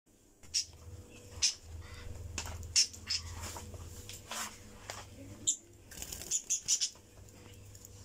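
Pet budgerigars chirping in short, sharp high calls scattered through, with several in quick succession about six and a half seconds in, over a low steady hum.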